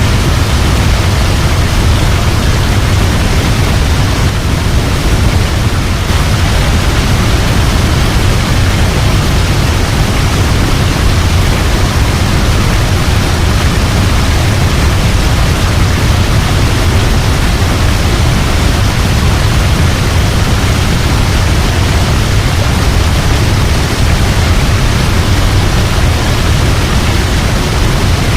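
Waterfall rushing in a loud, steady, unbroken roar of falling water, heaviest in the low end.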